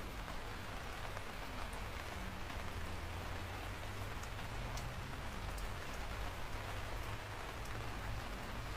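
Steady rain falling on a surface, a continuous patter with a few sharper drop ticks and a low rumble underneath.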